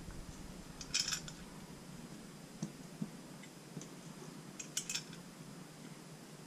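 Small metal engine hardware clinking and rattling as it is picked out of a plastic parts-organizer tray: a brief rattle about a second in, a few lone ticks, and another short rattle about five seconds in.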